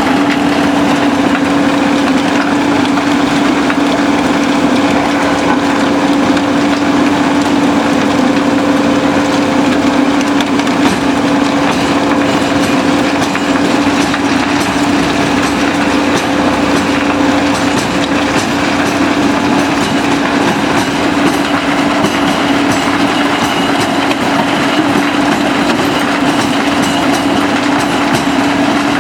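SBM mobile impact crusher crushing concrete: a steady machine hum under a continuous dense rattle and clatter of rubble being broken and falling through the machine.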